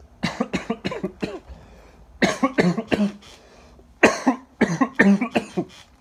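A person coughing in three fits of several quick coughs each: one just after the start, one about two seconds in, and one about four seconds in.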